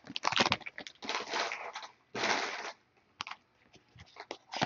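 Foil trading-card pack wrapper crinkling in three short bursts as it is torn open and pulled off, followed by a few light clicks and taps of the cards being handled.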